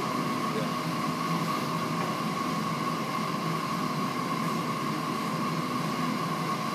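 Steady machine noise: an even hiss with a constant mid-pitched whine.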